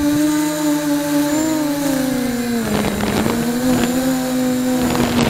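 QAV250 miniquad's brushless motors and propellers whining, heard through its onboard camera. The pitch falls about halfway through as the quad descends, then holds and creeps back up, with a gusty rushing of air on the microphone from then on.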